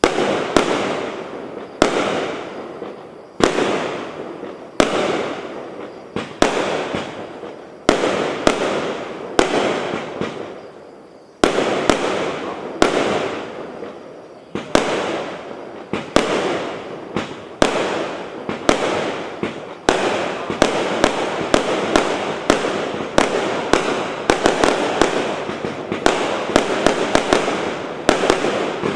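JF C37 multi-shot firework cake firing shot after shot. Each sharp bang trails off over about a second. The shots come about every second and a half at first, then quicken to two or three a second in the last third.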